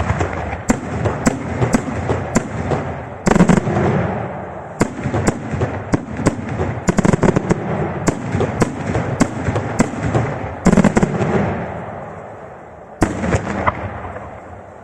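Daytime aerial fireworks bursting in a rapid string of sharp bangs, with rolling echoes between them. Heavier booms come about three seconds in, near eleven seconds and near thirteen seconds, and the barrage thins out near the end.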